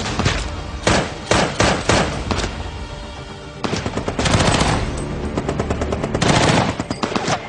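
Rifle gunfire in a firefight. Single shots and short bursts come for the first two and a half seconds, then a brief lull, then long rapid bursts of automatic fire about four seconds in and again past six seconds.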